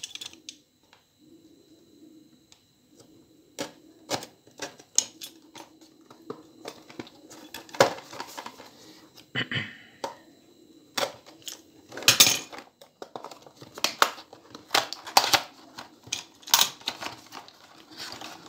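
Cardboard and plastic packaging of a Free Sound FS42 wireless earbud box being opened and handled: irregular clicks, taps and rustles, with a few sharper snaps, over a faint steady hum.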